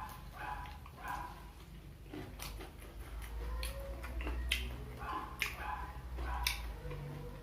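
Close-miked eating sounds from a mukbang of fried snacks: irregular wet clicks and smacks of chewing and lip smacking. Several short, high whining sounds come at the start and again about five seconds in.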